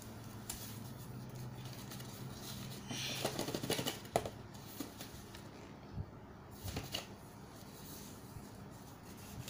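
Cardboard box of a VR headset being handled and picked at with the fingers: scratchy rustling of the cardboard about three to four seconds in and a few light taps, over a low steady hum.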